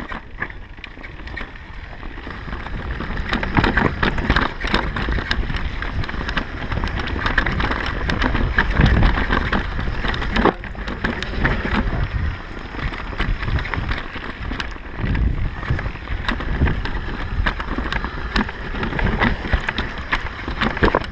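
Mountain bike descending a rough downhill trail: wind rushing over the helmet camera's microphone, with tyres on dirt and frequent rattles and knocks from the bike over bumps. It builds in loudness over the first few seconds as the bike picks up speed.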